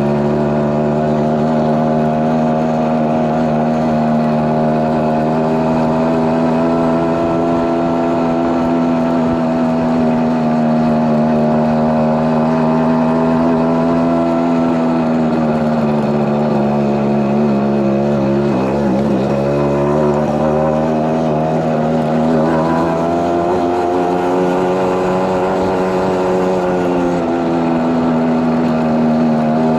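Suzuki AX100's small two-stroke single-cylinder engine running at a steady speed. Its pitch dips and climbs back twice, once about halfway through and again near three-quarters through.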